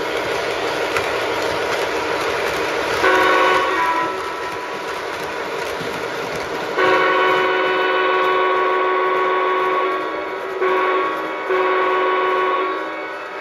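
Horn of an O scale model diesel locomotive's onboard sound system, a chord of several tones blown four times: a short blast about three seconds in, a long blast, a short one and a longer one near the end. Between the blasts come the locomotive's running sounds and the wheels rolling on the track.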